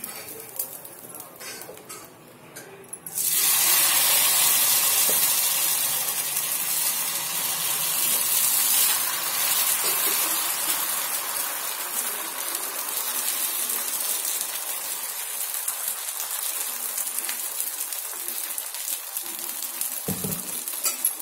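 Tomato dosa batter sizzling on a hot dosa tawa. The sizzle starts suddenly about three seconds in as the batter is poured, then goes on steadily while it is spread in circles with a ladle, growing slowly quieter.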